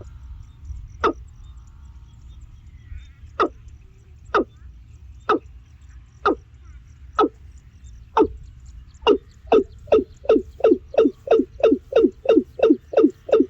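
An animal calling a series of short, sharp notes, about one a second at first, then speeding up to a rapid run of about two and a half a second in the last third.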